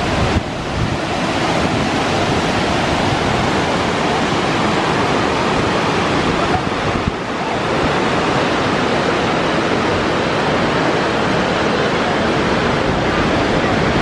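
Kegon Falls, a tall waterfall, rushing steadily: an even, constant noise of falling water.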